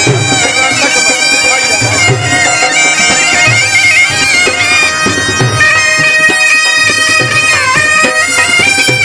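Shehnai playing a melody in held notes that step up and down, over repeated low thumps of a dhol drum.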